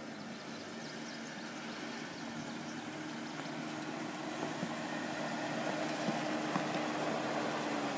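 Jeep Wrangler Unlimited engine running at a low, steady crawl as the vehicle comes down a rocky dirt trail, its hum growing louder as it draws near, with small clicks of stones under the tyres.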